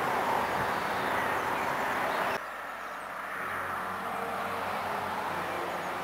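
Outdoor ambience with a steady rushing noise that cuts off suddenly about two and a half seconds in. After that comes a quieter hush with faint held low tones.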